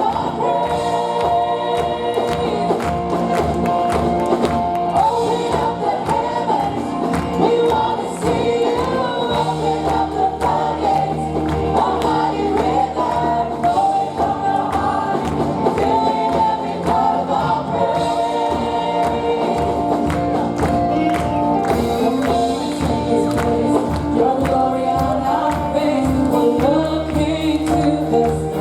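Gospel worship music: a choir and congregation singing over a band with a steady beat and tambourine.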